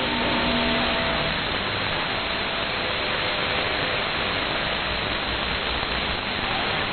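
Radio receiver static: steady hiss from a CB/11-metre radio with the squelch open between transmissions, with faint whistling tones in the first second or so.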